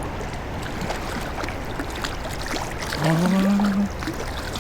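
Steady rush of river current with scattered small splashes and clicks. A man's short wordless vocal sound rises over it about three seconds in.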